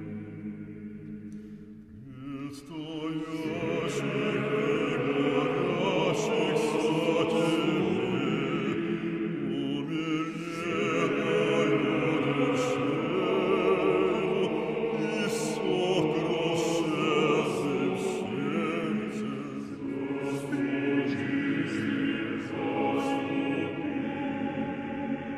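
A choir singing in several voices, swelling louder about two seconds in.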